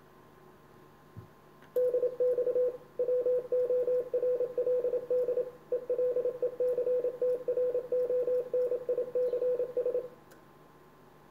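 Ham radio transceiver's CW sidetone: a single steady tone keyed on and off in Morse dots and dashes for about eight seconds, starting about two seconds in. This is the transmitter being keyed in CW mode to drive the linear amplifier for a power test.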